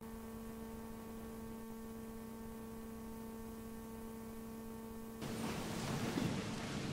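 A steady electrical hum, a low tone with a higher one above it. About five seconds in, a louder uneven noise joins it.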